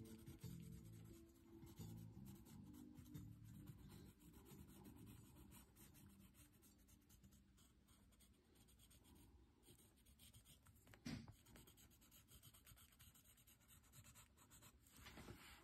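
Faint scratching of an oil pastel stick drawn in short strokes across a painted board. Background music fades out over the first few seconds, and there is one soft bump about eleven seconds in.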